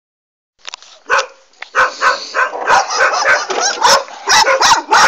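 Short, loud calls from an animal, repeated about three times a second and starting about a second in.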